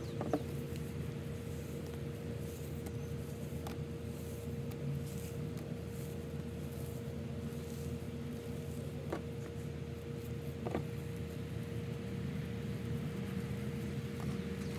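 Steady hum of an outdoor air-conditioner unit running, a constant mid tone over a low drone, with a few faint clicks.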